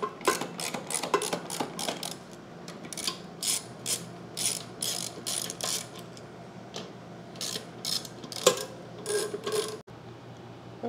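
Hand socket ratchet clicking in quick runs with short pauses, as the bolts fastening the seal plate to the pool pump motor are snugged up.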